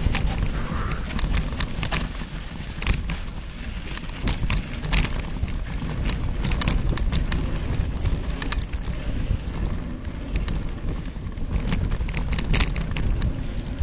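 Mountain bike ridden over dry dirt singletrack: a steady low rumble of wind and tyre noise, with frequent sharp clicks and rattles as the bike runs over bumps and stones.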